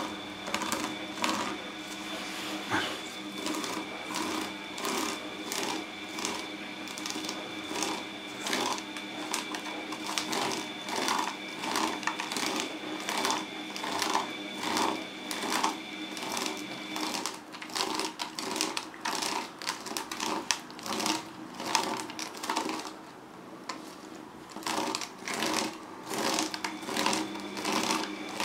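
Fingernails scratching a sisal-rope scratching post in quick, repeated rasping strokes.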